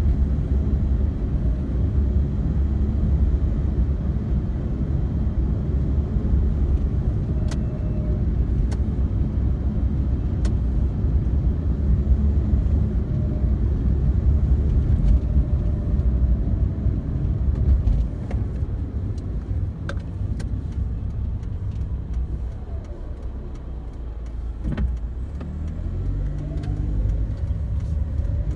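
Road and engine noise inside a moving car's cabin, a steady low rumble. It gets quieter about two-thirds of the way through, then builds again near the end as the engine note rises in pitch.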